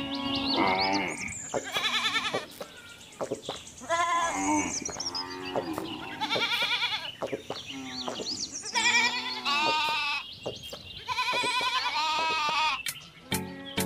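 Farm animals bleating over and over: about six wavering calls, each a second or so long, with short gaps between.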